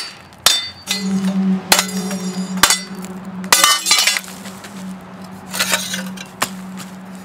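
Hammer blows on the sump pump's metal parts to knock a brass piece free: a series of sharp metallic clanks at uneven spacing, some with a short ring, over a steady low hum.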